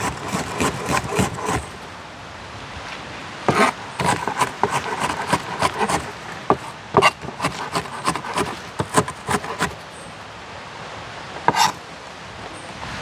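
Firewood being handled and broken to lay a cooking fire: irregular clusters of sharp wooden knocks and cracks with some scraping, broken by a couple of short pauses.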